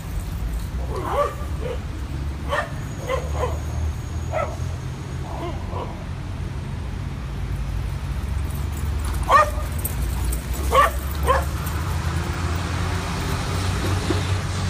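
Dogs barking and yipping in short, separate barks, scattered through the first few seconds, with the loudest cluster of barks around nine to eleven seconds in. A steady low rumble runs underneath.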